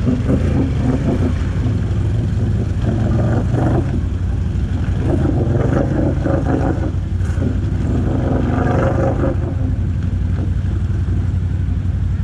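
ATV engine running steadily under load, surging in revs several times as the quad pushes through ice and water.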